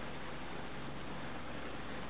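Johnson 25 hp outboard motor running steadily at very low speed, a constant drone under an even hiss.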